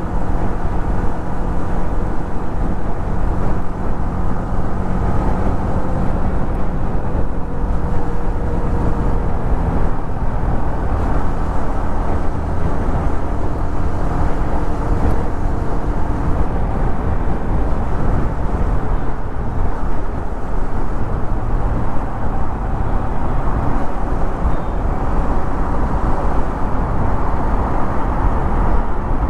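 Yamaha MT-15's 155 cc single-cylinder engine and exhaust running while riding at a steady cruise, its pitch shifting a little now and then with the throttle.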